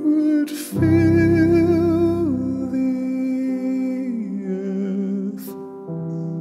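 Slow piano ballad: a male voice holds a long wordless note with vibrato that steps down in pitch twice, over soft sustained piano chords, with a breath near the start and another near the end.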